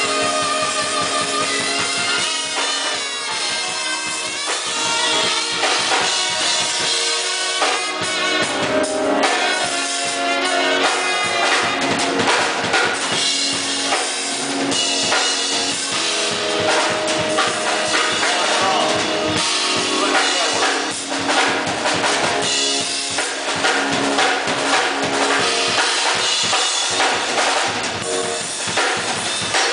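Band music with a drum kit keeping a steady beat under pitched instruments; the drumming grows busier about a quarter of the way in.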